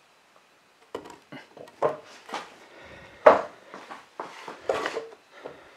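A thick poplar board and a masonite planer sled being handled and set in place: irregular wooden knocks and scrapes, the loudest about three seconds in.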